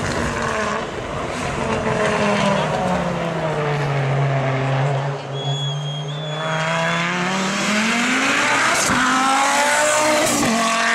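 Audi S2 quattro hillclimb car's turbocharged inline-five engine at full race pitch. The engine note falls over the first few seconds, holds low around the middle, then climbs steadily back up toward the end.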